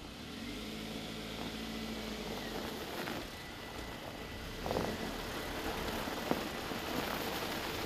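Geely SC7 sedan's 1.8-litre four-stroke petrol engine running quietly at low revs as the car rolls slowly over snow, with a few faint clicks.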